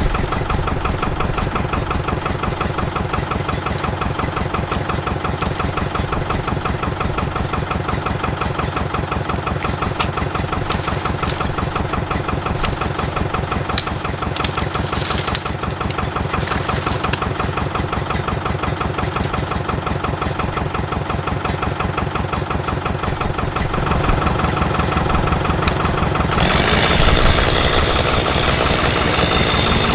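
An engine idling steadily with an even knocking beat. Near the end a chainsaw comes in at full speed, a loud high rasp over the engine.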